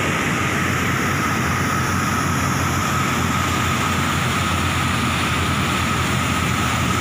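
Fast muddy floodwater rushing and churning through a concrete channel: a loud, steady, unbroken rush of water.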